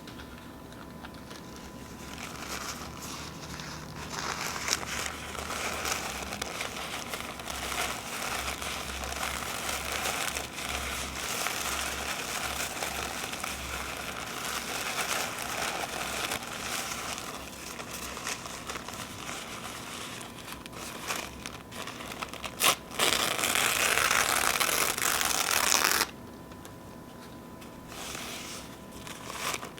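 Paper napkins being crinkled and torn by hand: a soft, continuous rustling and crumpling. Near the end a louder rip lasts about three seconds and stops suddenly.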